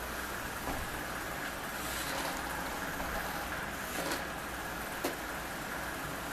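Small robot's electric drive motors running steadily, with a few light knocks scattered through.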